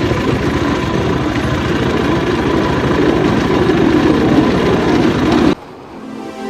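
Cambodian bamboo train (norry) running along the rails: its small tractor-type motor and wheels on the track make a steady loud rumble and rattle that cuts off suddenly about five and a half seconds in. Soft music begins near the end.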